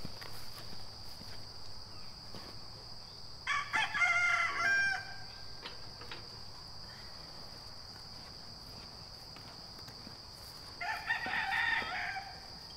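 Rooster crowing twice: once about three and a half seconds in and again near the end, each crow lasting about a second and a half.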